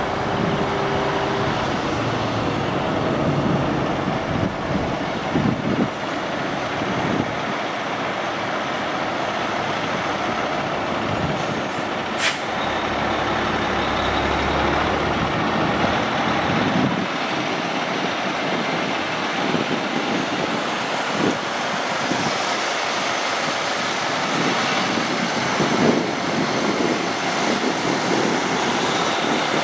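Two Peterbilt 389 semi tractors driving slowly past one after the other, their diesel engines running, with one short sharp sound about twelve seconds in. A deeper engine rumble follows for a few seconds.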